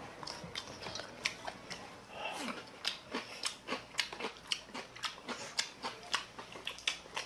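Eating sounds: close-up chewing and wet lip-smacks with irregular short clicks, a few a second, as two people eat from bowls with chopsticks.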